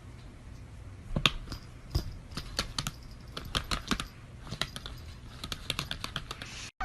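An irregular run of sharp clicks and taps, several a second, starting about a second in and stopping abruptly near the end, like keys being typed.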